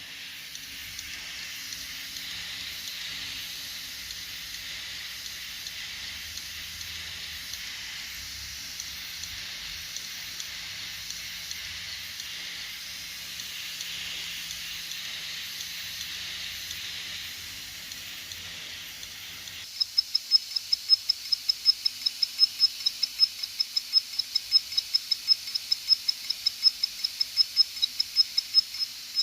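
Faulty enterprise SAS hard drive running with its cover off: a steady hiss with a faint low hum, then about two-thirds of the way through a rapid, even high ticking begins, about five ticks a second. This is the drive's weird fault noise.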